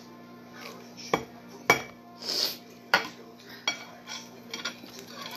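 Metal fork and knife on a ceramic dinner plate while cutting grilled chicken: several sharp clinks about a second apart, with a short scrape about two seconds in.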